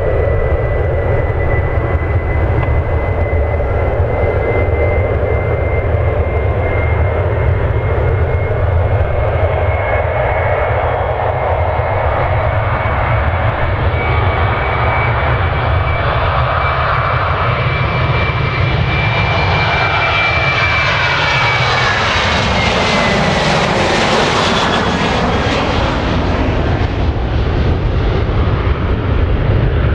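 Boeing 737-800's CFM56-7B turbofan engines at takeoff thrust: a steady low rumble under a high fan whine as the airliner rolls down the runway and climbs away. The sound grows brighter as the jet lifts off and passes close by, and about two-thirds of the way through the whine glides down in pitch.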